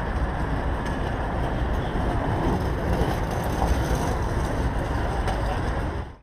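Steady city traffic noise with a low rumble from a road beside a busy pedestrian walkway, fading out just before the end.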